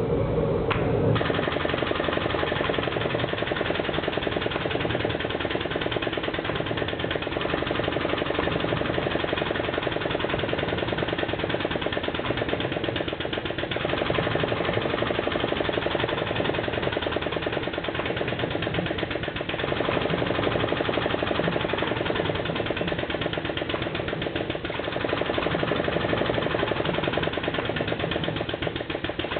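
Hydraulic forging press running, its pump giving a steady, fast mechanical pulse that starts about a second in, over the continuous noise of a loud forge, while hot L6 steel is squeezed between flat and drawing dies.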